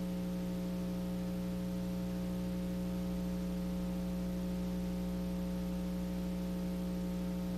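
Steady electrical mains hum with a faint hiss on the soundtrack: one strong low tone with a ladder of fainter overtones, unchanging throughout.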